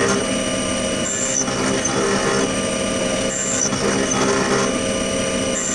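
CNC vertical milling machine cutting an aluminum part: a steady spindle whine, with a cutting pass that repeats about every two seconds, each bringing a short high tone that steps down in pitch.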